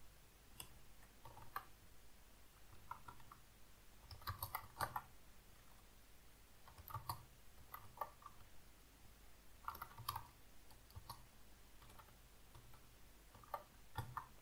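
Typing on a computer keyboard: faint key clicks in short irregular bursts with pauses between them.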